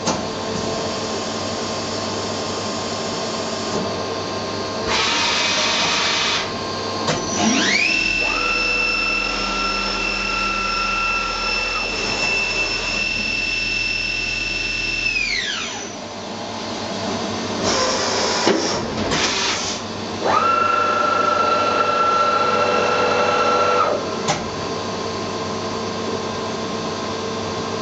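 Johnford HMC500 horizontal machining centre running with a steady hum and two bursts of hiss. Its spindle whines up to speed, holds a steady high whine for about eight seconds, then winds down; a second, shorter whine follows a few seconds later.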